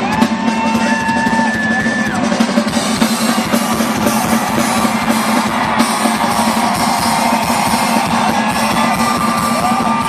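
Rock band playing live, drum kit prominent, with guitar and a few long held notes over it.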